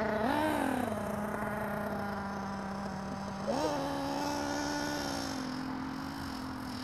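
Thunder Tiger ST1 RC truck running at a steady pitch, revved briefly twice, about half a second in and again about three and a half seconds in.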